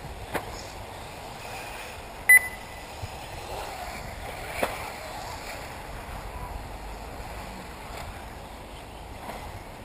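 A short, loud, high electronic beep about two seconds in, typical of a race lap-timing system counting a car across the line. It sounds over a steady outdoor background hiss, with two sharp clicks, one near the start and one about halfway through.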